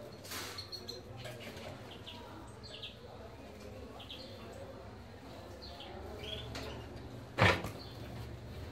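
Caged canaries and goldfinch-hybrid finches giving short, soft chirps over and over. About seven and a half seconds in comes one short, loud knock.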